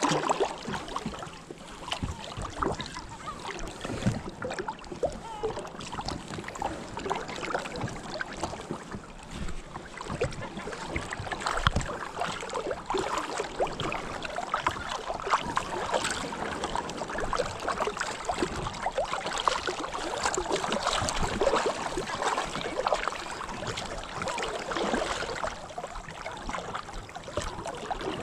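Sea water sloshing and splashing, with many small irregular splashes over a steady wash.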